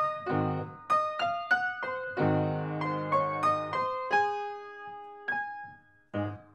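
Background piano music: a light melody of single ringing notes over occasional chords. It dies away near the end.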